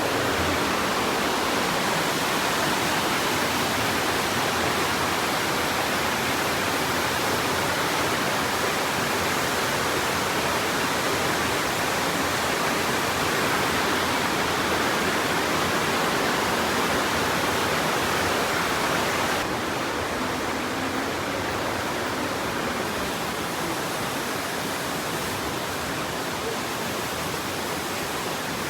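The Aare river rushing through its narrow gorge, a steady, loud wash of water noise; it drops slightly in level and brightness about two-thirds of the way in.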